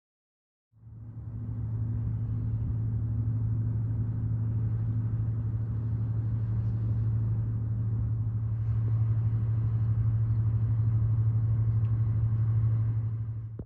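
Steady low engine rumble with a deep hum, as of a cargo ship's diesel running; it fades in within the first second and cuts off abruptly at the end.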